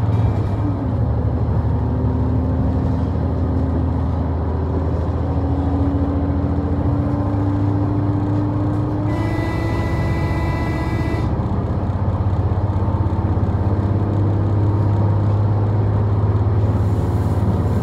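Interior sound of a KiHa 126 series diesel railcar under way: a steady low hum, with the engine note rising slowly as the train picks up speed. About nine seconds in, a brief high, hissing sound lasts about two seconds.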